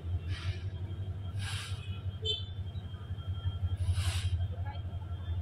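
Diesel locomotive of a coal train approaching head-on, its engine making a low, steady rumble, with three short hisses along the way.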